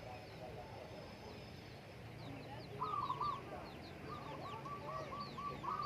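Birds calling: groups of short, quickly repeated low calls, one run of about six notes in a row, with thin high chirps of small birds over them.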